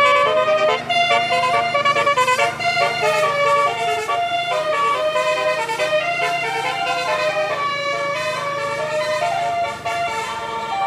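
Bus telolet horn, a 12-note basuri, playing a tune of quick stepped notes over the steady hum of the bus engine.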